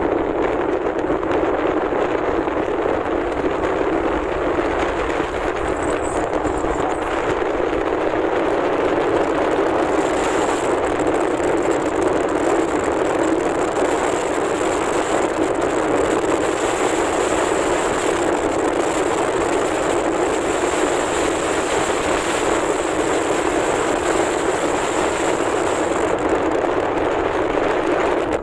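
Steady wind and road noise inside a moving car with a window open.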